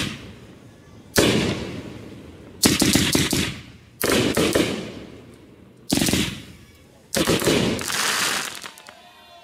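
Aerial firework shells from a consumer multi-shot cake bursting in the sky: five loud booms about a second to two apart. The second and the last burst are followed by a rapid run of crackling.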